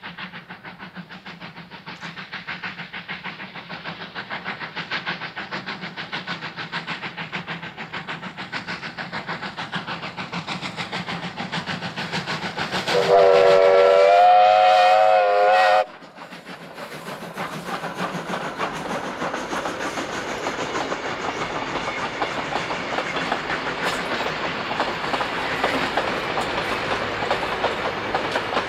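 Oil-burning Victorian Railways J class 2-8-0 steam locomotive working hard, its rapid exhaust beats growing louder as it approaches. About halfway through it sounds its steam whistle for about three seconds, which cuts off suddenly, and then the carriages roll past with wheels clicking over the rail joints.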